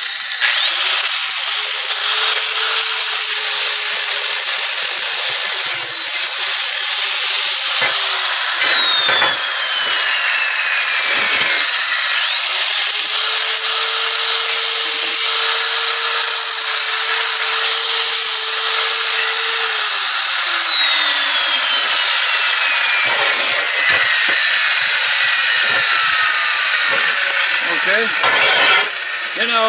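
Hand-held angle grinder with an abrasive disc grinding the sharp corners of a steel drawbar bracket round. Twice the motor spins up to a high whine, runs under load for several seconds over a rasping grind, then is switched off and winds down in a long falling whine.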